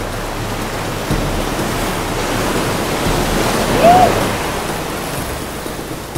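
Ocean swell surging and washing over shoreline rocks, a steady rushing noise, with a brief rising-and-falling cry about four seconds in.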